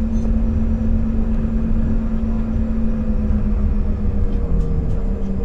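Inside the cabin of a Canadair CRJ200 regional jet: the steady low rumble of its turbofan engines, with a steady hum that drifts slightly lower in pitch and steps down about four and a half seconds in.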